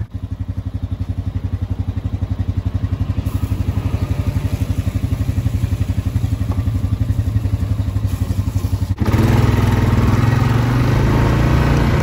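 Honda Rubicon ATV engine idling with an even, quick pulse, then louder and busier from about nine seconds in as the four-wheeler gets underway.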